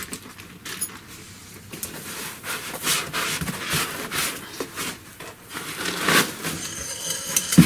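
Foam packing and cardboard rubbing and scraping in irregular strokes as a CNC router's frame is worked loose from its foam insert in a cardboard box.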